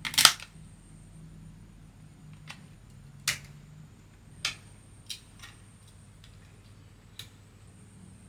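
Sharp plastic clicks and snaps while the Eggel Terra 3 Max speaker's housing and passive radiator are being worked apart in a teardown: a loud snap at the start, then half a dozen single clicks spread over the next seven seconds.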